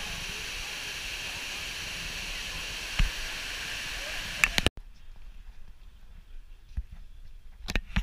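Waterfall rushing steadily as it cascades down rock terraces, with a sharp knock about three seconds in. The rush cuts off abruptly a little past halfway, leaving a quiet stretch with a few clicks and knocks near the end.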